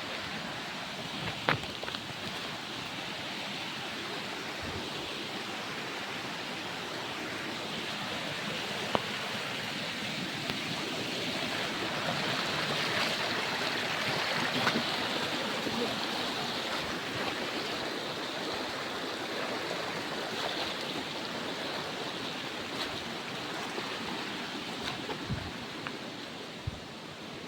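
Steady rush of a stream's running water, swelling slightly about halfway through, with a few sharp clicks on top.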